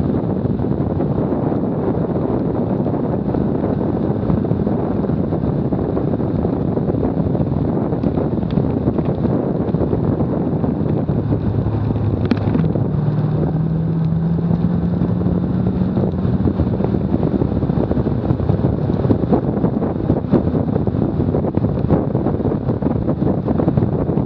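Heavy wind buffeting on a bumper-mounted camera's microphone as a car laps a race track at 50 to 70 mph. The car's engine is faintly audible under the wind, rising in pitch as it accelerates out of a corner about halfway through.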